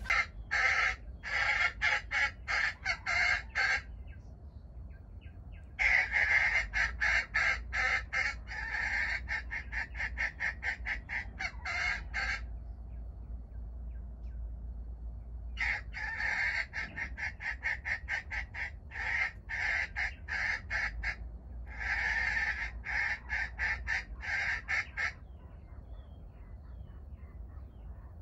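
Wild junglefowl calling in long runs of rapid clucks, four bouts of several seconds each with short pauses between them.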